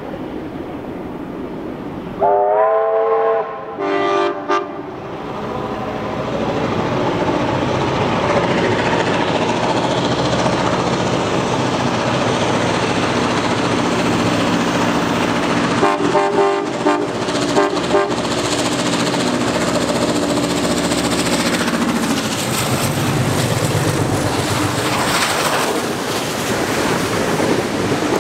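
Train horn sounding a long chord blast about two seconds in, then two short toots. The loud steady running noise of the approaching train follows, with a few more short horn toots about halfway through, then the rumble and clatter of the carriages passing close by.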